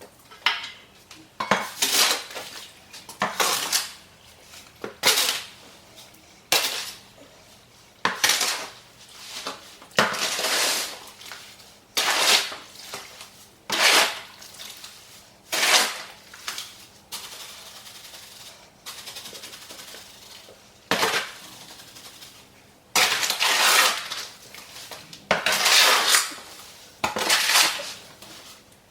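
Mortar mix being stirred by hand with a tool scraping against the mixing container, in repeated rough strokes about one every second or two, with a few seconds' pause past the middle.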